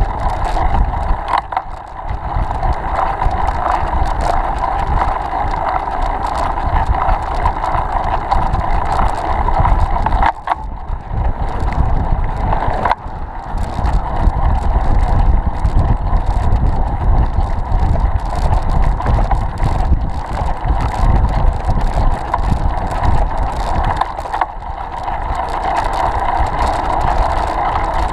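Steady wind noise buffeting the microphone, with bicycle tyres running on asphalt while riding along at speed.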